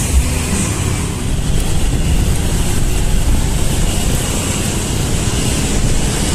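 Wind rumbling on the microphone of a camera carried on a moving bicycle, mixed with steady road traffic.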